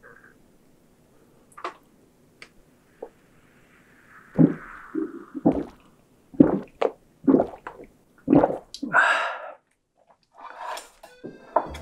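A man gulping beer from a glass: about eight loud swallows in quick succession, roughly two a second, ending with a breath out.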